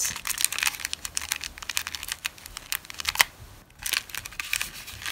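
Rapid small clicks and crinkles of fingernails picking and scratching at a plastic spool of scalloped lace while hunting for the loose end, with a brief pause about two-thirds of the way in.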